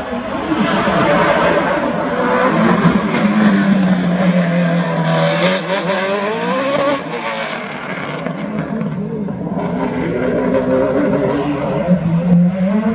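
Race car engine revving hard through a corner. Its pitch dips, then climbs about five seconds in, eases off around seven seconds, and rises again near the end.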